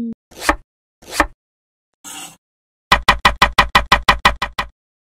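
Chef's knife chopping on a bamboo cutting board: a few separate strokes, then a quick run of about a dozen even chops, around seven a second.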